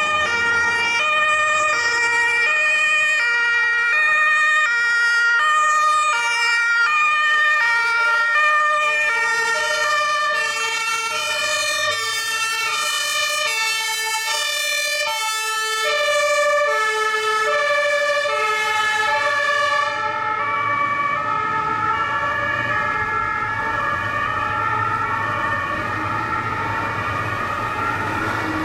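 Two-tone Martinshorn sirens of several fire engines on an emergency run, each switching back and forth between a high and a low note, overlapping out of step with one another over the rumble of truck engines. After about twenty seconds the sirens grow duller as the convoy moves off.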